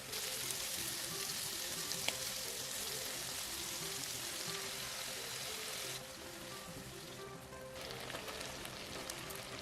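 Food sizzling in a hot frying pan, a steady hiss over soft background music; the sizzle drops away about six seconds in and comes back quieter near the end.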